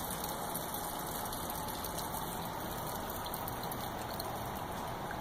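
Elderberry tincture and berry mash poured from a plastic pitcher into a mesh press bag in a stainless steel press cylinder: a steady rush of liquid.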